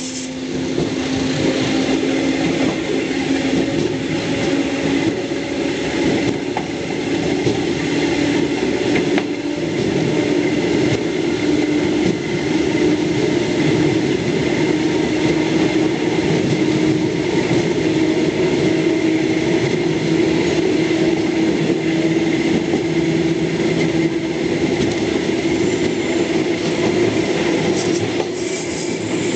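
Electric multiple unit commuter train running through the station yard, heard from inside its rear cab: a steady rumble of wheels on rail with a steady hum under it, growing louder about a second in.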